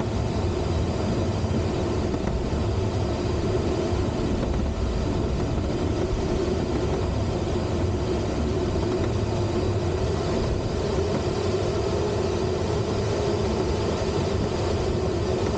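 Steady rush of air streaming over a Duo Discus two-seat glider in flight, heard inside the cockpit: an even, unbroken noise with no engine.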